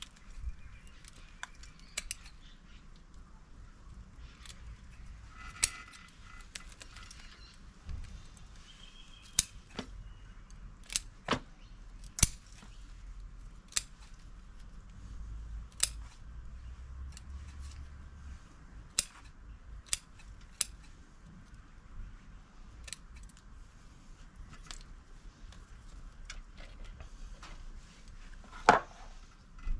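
Bonsai scissors snipping through Satsuki azalea roots: sharp, irregular snips every second or two, with a louder one near the end.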